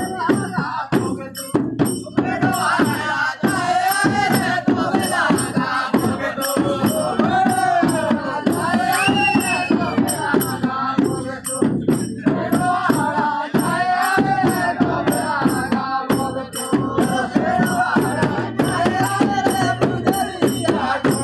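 Men singing a Jaunsari folk song together, with traditional hand drums beating a steady, fast rhythm and hands clapping.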